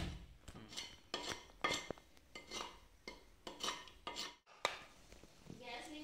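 A curved hand blade chopping at a coconut's husk to strip it, a sharp strike roughly every half second as the fibres are hacked and torn away. Near the end, after a break, a metal clink and a brief ringing, a steel spoon against an aluminium pot.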